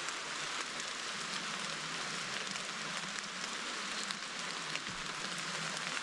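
Steady rain falling on rainforest foliage: an even hiss with scattered ticks of individual drops.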